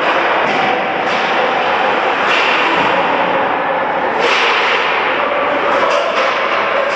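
Ice hockey play in an indoor rink: a steady din of skates on the ice and arena noise, broken by several sharp cracks of hockey sticks.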